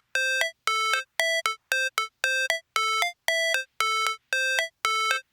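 Electronic music: a short synthesizer figure of clean, bell-like notes repeated about twice a second, with gaps of silence between, the sparse intro of a hip-hop beat.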